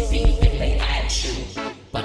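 Live hip hop music: drum machine hits over a deep synth bass that drops out about a second and a half in, with electric guitar.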